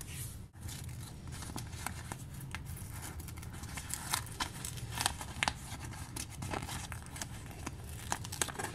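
Paper sticker sheet being handled and stickers peeled off it: light crinkling and rustling with many small scattered ticks.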